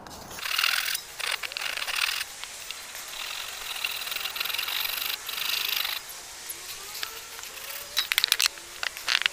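Handsaw cutting through a softwood 4x2, steady rasping strokes for about six seconds and then stopping. A few sharp knocks follow near the end.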